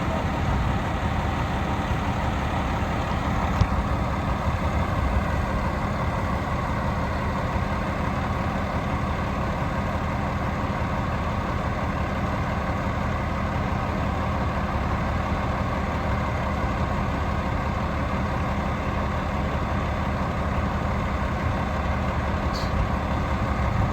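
Heavy vehicle engine running steadily, a low even rumble with no change in pace.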